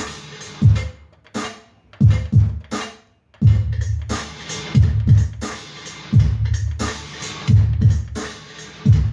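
Electronic drum-machine dance beat with a heavy, syncopated bass drum, snare and hi-hats; the beat drops out briefly about three seconds in, then comes back.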